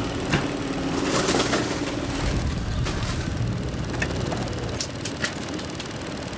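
Charcoal briquettes being handled and set on a grill rack, with a few sharp clicks of briquettes knocking together about five seconds in, over a steady low background hum.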